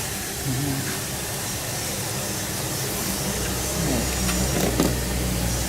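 Steady mechanical background rumble with a low hum that comes up about three seconds in, faint voices underneath, and a small click near the end.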